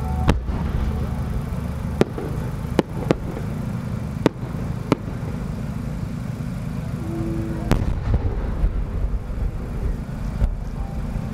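Large Japanese warimono firework shell (shakudama) being launched and bursting: a string of sharp cracks over the first five seconds, then a boom about eight seconds in that trails off into a low rumble, all over a steady low rumble.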